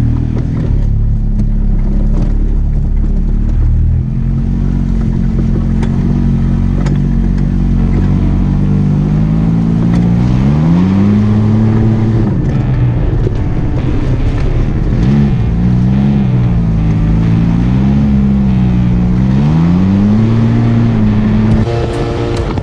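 Arctic Cat Wildcat Trail side-by-side fitted with a Big Gun slip-on exhaust driving on the road. Its engine note rises and falls in pitch several times as it accelerates and eases off. Music comes in near the end.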